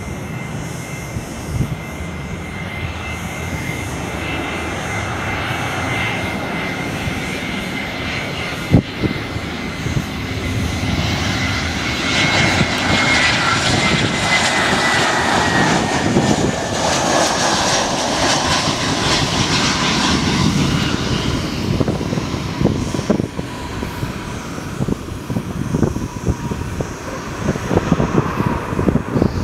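An Airbus A320-214's CFM56-5B turbofan engines on approach: a steady jet whine that grows louder, drops in pitch as the airliner passes, then fades. A single sharp click comes about nine seconds in, and the later part is an uneven low rumble.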